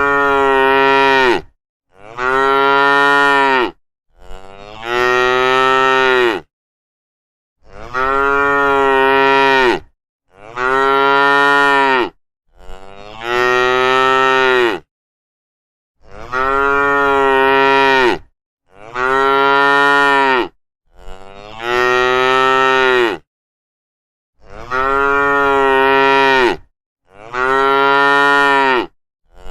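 Cow mooing: long, loud moos of about two seconds each, in groups of three with dead silence between them. The same three moos repeat over and over, about a dozen calls in all.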